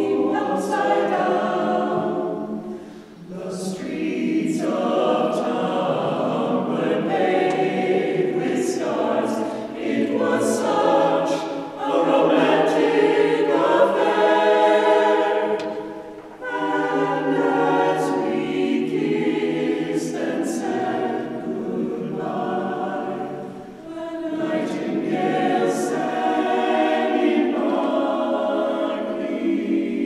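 Mixed-voice vocal ensemble singing a cappella in close jazz harmony, the phrases parted by short breaths about 3, 16 and 24 seconds in.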